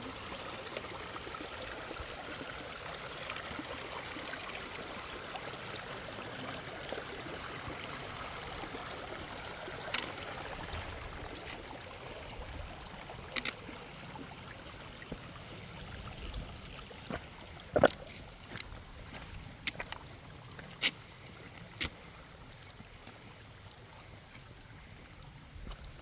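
Creek water running steadily, fading through the second half as footsteps and scattered sharp knocks of walking on a trail come in, the loudest about two-thirds of the way through.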